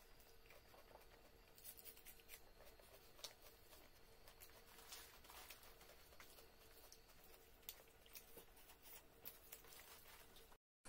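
Near silence with faint, scattered small clicks and smacks of eating by hand: fingers working rice on a plate and a mouth chewing.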